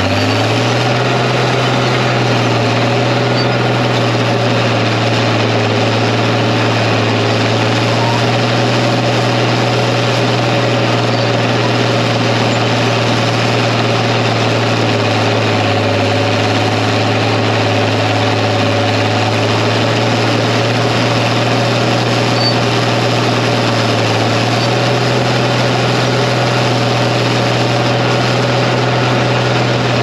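Crawler bulldozer's engine running steadily at working speed while the blade pushes a load of clay, heard from the operator's seat. It comes up to speed in the first second, then sags a little for several seconds past the middle before picking back up.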